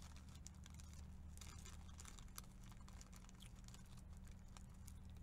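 Faint, irregular small clicks and rustles of something being handled by hand, over a steady low hum.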